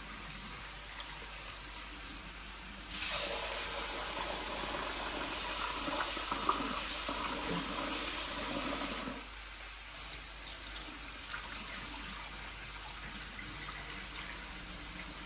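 Kitchen tap running water into a sink while rice is rinsed. It is turned on abruptly a few seconds in and shut off about six seconds later.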